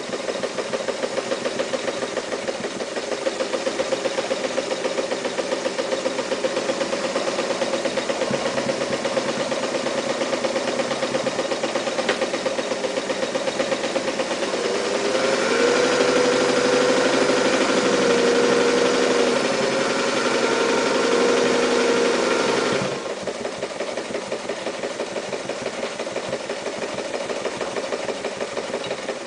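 Mitsubishi MAZ4 electric sewing machine running and stitching, with a fast, even needle-and-motor rhythm. It runs louder and with a higher hum from about halfway through, then drops back abruptly about three quarters of the way in.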